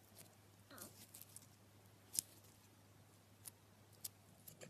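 Clear slime squeezed and folded in the hands, giving faint, scattered clicks and pops as air pockets in it burst, about eight in all, one sharper pop a little past two seconds in.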